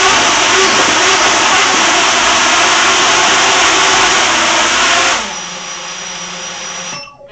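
Four iFlight Xing 2806.5 brushless motors on a 7-inch quadcopter spinning their props hard while it sits on the floor, a loud steady whir. About five seconds in the throttle drops and they carry on at a quieter steady hum, then spin down and stop about seven seconds in.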